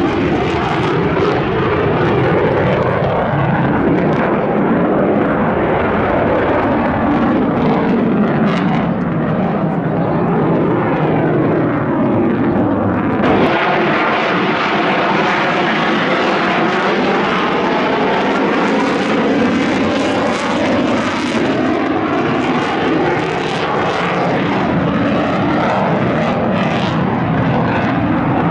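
F-35 fighter's F135 jet engine at high power, afterburner lit, a loud continuous rumble of jet noise. About halfway through the sound turns brighter and harsher, with a crackling edge.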